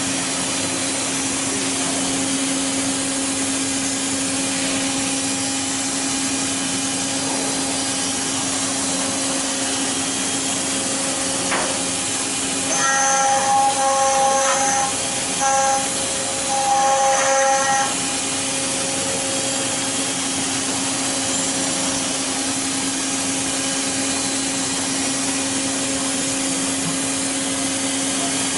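CNC stone-carving machine's spindle running steadily as its carving bit grinds into a stone statue, with a constant low hum under a grinding hiss. About halfway through, a louder, higher whine comes and goes in three spells over about five seconds.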